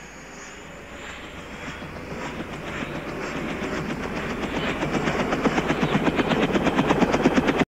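Rotor blades of a large military helicopter beating in a fast, even rhythm, growing steadily louder as it approaches, then cutting off abruptly near the end.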